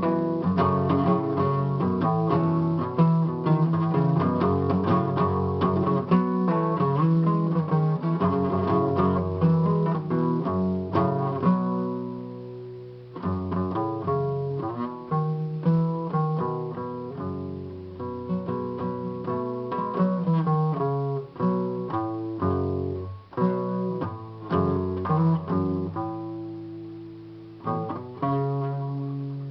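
Acoustic guitar music: quick plucked notes with some strummed chords, easing off briefly about halfway through and again near the end.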